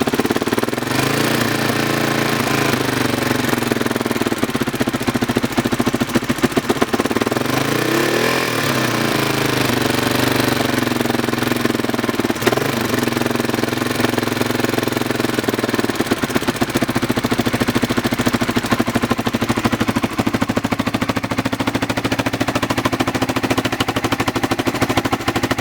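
Honda XR600R single-cylinder four-stroke engine running at idle with a rapid, even ticking clatter over the exhaust note: the ticking noise whose cause the owner is trying to find. The revs rise and fall once about a third of the way in, with a few smaller blips around it.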